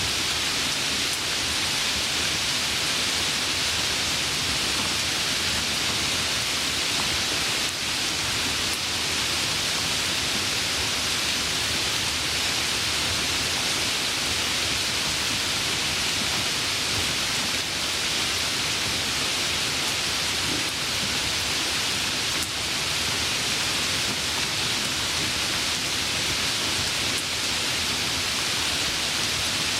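Steady heavy rain: an even, unbroken hiss of falling rain.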